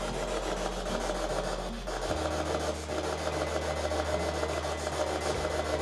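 Steady scratchy static hiss over a low electrical hum, the hum shifting to a slightly higher pitch about two seconds in.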